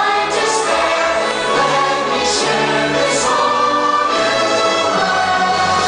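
Choral and orchestral music of the fireworks show's soundtrack, a choir holding long sung notes over the orchestra.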